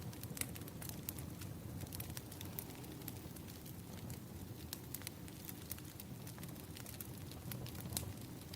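Wood fire crackling: many scattered sharp pops and crackles over a low steady rumble, one pop a little louder about eight seconds in.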